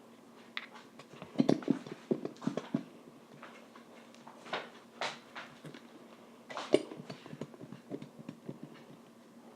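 Scattered clicks and knocks from a glue bottle being handled and squeezed to get the last of the glue out, the loudest knock about two-thirds of the way through.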